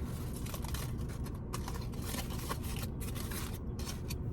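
Steady rustling and crinkling of takeout food packaging being handled, full of small quick clicks.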